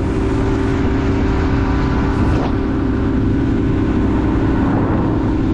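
Motorboat engine running steadily underway, a constant low rumble with a steady engine drone on top.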